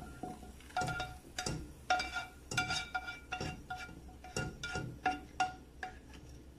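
A black cooking spoon tapping and scraping inside a metal frying pan as it is emptied into a pot, the pan ringing briefly after each of many quick taps, about three a second.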